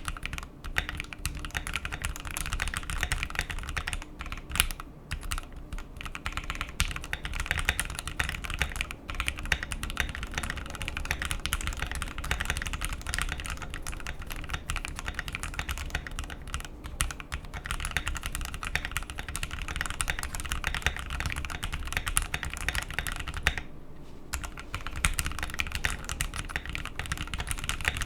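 Continuous fast typing on a modded Keychron Q1 mechanical keyboard fitted with Gateron Oil King linear switches, lubed, with painter's tape on the PCB, giving a dense stream of keystrokes. The typing lets up briefly about four seconds in and again near the end.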